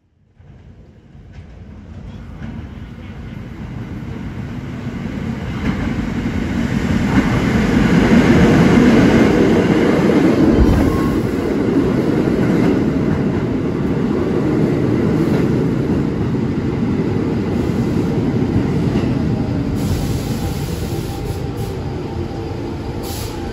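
R46 subway train running into an underground station and slowing along the platform. The rumble of wheels on rail builds over the first eight seconds or so as it approaches, then carries on a little lower as the cars roll past, braking.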